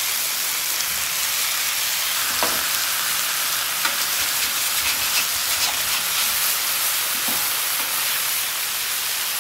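Marinated ribeye steaks, with peppers and onions beside them, sizzling steadily as they sear on a hot flat top griddle. A metal spatula turns the steaks, with a few faint light clicks.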